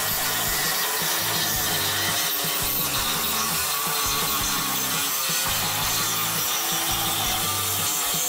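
Ridgid Gen5X reciprocating saw with a Diablo carbide-tipped nail-embedded wood blade cutting steadily through a 2x6 driven full of framing nails, the blade sawing through wood and steel nails together and striking sparks.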